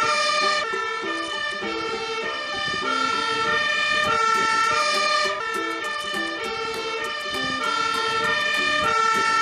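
Toy fire truck's electronic sound chip playing a looping tune of short stepped notes, like a siren.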